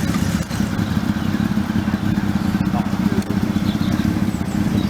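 A modified car's engine idling steadily close by, with an uneven, fluttering exhaust note and no revving.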